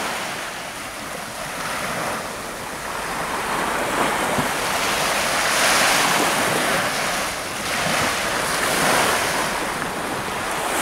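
Baltic Sea surf breaking on the beach, a steady wash of waves that swells and eases over a few seconds, with wind buffeting the microphone.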